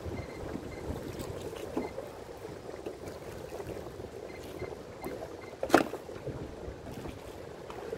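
Water lapping and trickling against a small boat's hull, with one sharp knock a little before six seconds in.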